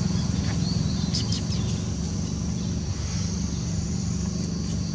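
An engine running steadily with an even low rumble, with a few faint bird chirps about a second in.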